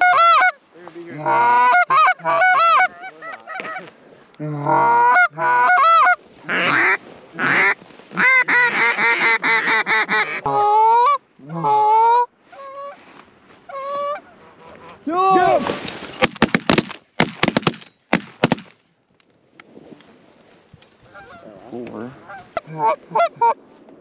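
Goose calls blown by hunters: fast, loud runs of honks and clucks for the first ten seconds or so, then sparser single honks. About two-thirds of the way through comes a short burst of sharp clicks and knocks.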